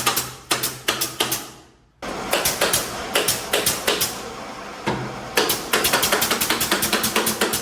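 Pneumatic nail gun firing in quick runs of sharp shots, several a second, fastening wood during interior carpentry framing.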